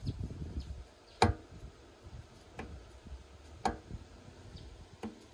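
Four sharp metallic clicks, about a second and a quarter apart, as a Seadoo 951 two-stroke piston is pushed and rocked by hand in its cylinder bore. The first click is the loudest and rings briefly.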